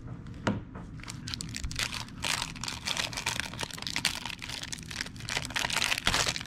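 Foil wrapper of a sealed 1993 Topps basketball card pack crinkling as fingers grip and pull at it, trying to open it; the crinkling gets denser about two seconds in.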